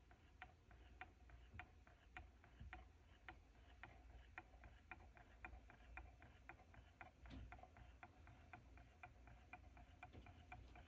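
Low-temperature Stirling engine running, its moving parts making a steady run of faint ticks, about two to three a second.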